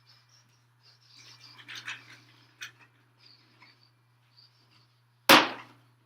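Soft rustling and handling noises, then a single sharp loud knock about five seconds in, over a steady low hum.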